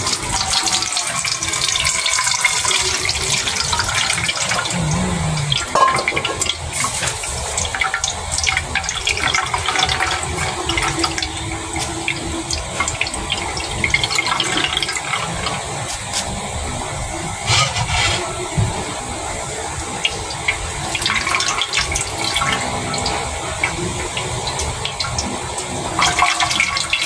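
Coconut milk being poured and strained through a plastic colander into a metal basin: steady splashing and trickling of liquid, with wet squelches from the grated coconut pulp being worked by hand in the strainer.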